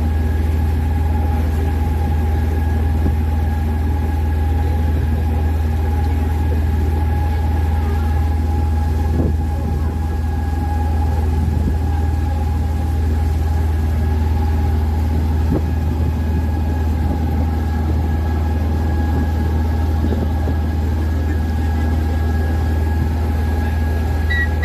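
An open tour boat's engine running steadily under way: a constant low drone with steady higher tones above it.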